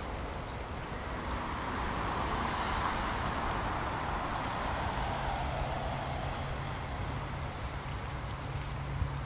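Steady rumbling noise ambience, like road traffic, that swells for a few seconds and eases off, with a low steady hum coming in about halfway.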